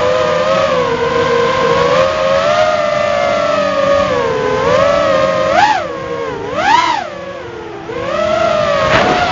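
Walkera F210 racing quadcopter's motors and propellers whining, the pitch rising and falling with the throttle, with two sharp upward sweeps from quick throttle punches past the middle and a brief lower, quieter stretch after them.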